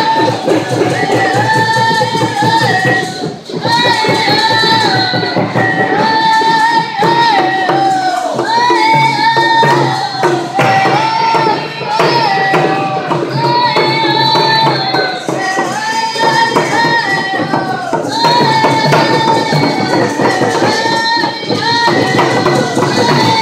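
Group of young girls singing together while beating hand-held frame drums in a steady beat, the singing phrased in repeated verses.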